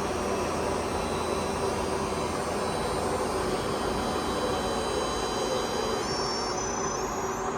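Pinacho Taurus 260 CNC lathe running, with a steady mechanical whir and hum. Near the end a high whine climbs in pitch in small steps.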